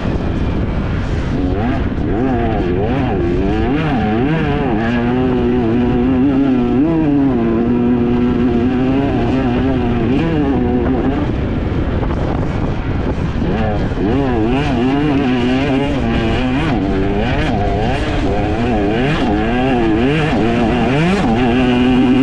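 Enduro dirt bike engine revving up and down with the throttle, holding a steady pitch for several seconds midway, with scattered sharp knocks over it.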